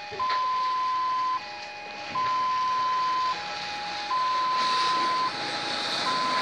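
Railway level-crossing warning alarm sounding a steady two-tone cycle, a higher tone for just over a second, then a shorter lower tone, repeating, to warn that a train is coming. A rushing noise builds under it in the last two seconds.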